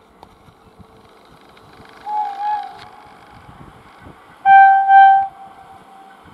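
Air horn of an approaching Indian Railways WAP-4 electric locomotive sounding two loud blasts in quick succession about halfway through, trailing off into a fainter held note. A brief, softer wavering tone comes a couple of seconds earlier. Faint steady noise from the approaching train lies underneath.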